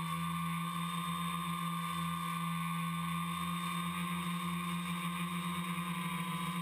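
Quadcopter's electric motors and propellers whining steadily at an even pitch, heard from the camera mounted on the craft.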